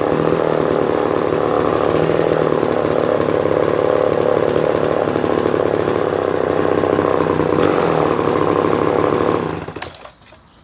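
Homelite Super XL 12 Automatic 58cc two-stroke chainsaw engine running steadily, which the owner feels runs slightly lean even at full throttle. Near the end it is shut off and dies away within about half a second.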